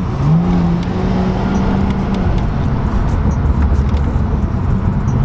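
Car engine running with road rumble. A steady droning note rises briefly about a quarter second in and holds for about two seconds before fading into the rumble.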